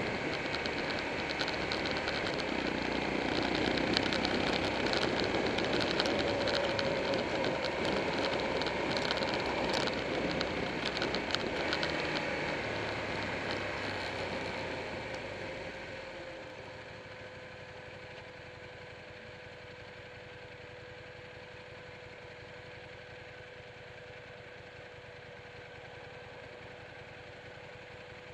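Buell 1125R sport bike's V-twin engine and wind noise while riding. About halfway through, the sound eases off as the bike slows and stops, then the engine idles steadily with a faint, constant tone.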